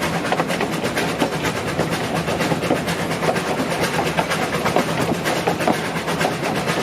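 Narrow-gauge train running along the track, a steady dense clatter of wheels and rattling stock over a low steady hum.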